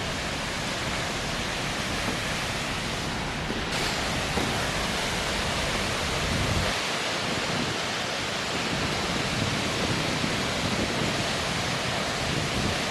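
A large waterfall's falling water, heard close up as a dense, steady rushing noise. Its tone shifts abruptly about four seconds in and again near seven seconds.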